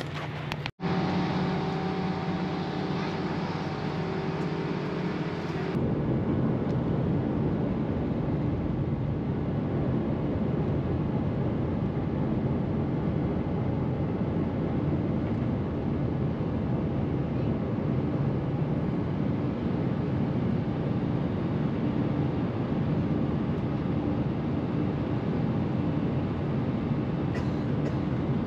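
Jet airliner in flight heard from inside the cabin beside the wing: a steady, dense rumble of engines and airflow during the climb. For the first few seconds a steadier hum with a few held tones runs instead, changing abruptly about six seconds in.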